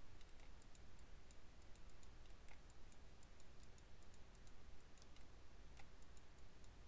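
Faint, irregular clicking of a computer mouse as brush strokes are dragged across the model, over a low steady hum; otherwise near silence.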